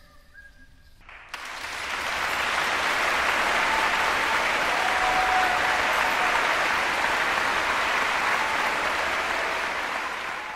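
A large concert-hall audience applauding, breaking out suddenly about a second in and holding steady after the choir's final note.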